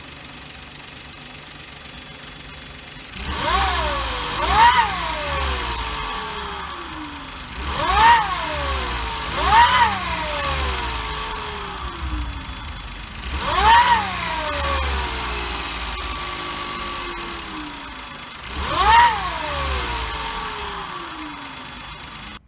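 Suzuki Every's 660 cc turbocharged three-cylinder engine idling, then revved six times. Each rev brings a whine that climbs sharply and slides back down as the revs fall: the turbo's compressor blades striking their housing. The damage comes from over 10,000 km without an oil change.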